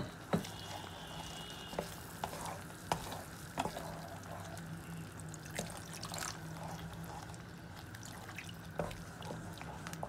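Wooden spatula stirring thick tomato gravy in a metal pan as water is poured in, with scattered knocks and scrapes of the spatula against the pan. A steady low hum runs underneath.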